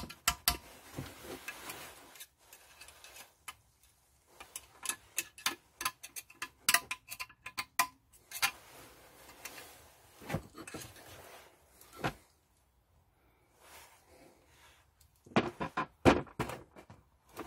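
Screwdriver clicking, tapping and scraping against the Rover 4.0L V8 timing cover while prying at the O-ring-sealed oil pressure relief valve. Irregular sharp metal clicks come in clusters with short quiet gaps between.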